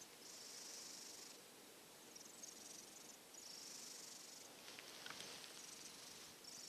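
Mackerel tabby kitten snoring softly in its sleep: a faint, wheezy hiss with each breath, about four breaths, in a kitten recovering from a cold.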